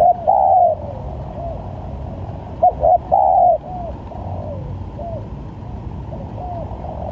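Spotted dove cooing: two loud phrases, one just after the start and one about three seconds in, with fainter short coos repeating between them, over a steady low rumble.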